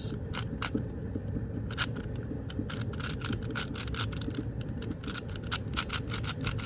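Plastic layers of a QiYi 4x4 speed cube clicking as they are turned, a few turns at first, then quick runs of turns from about halfway.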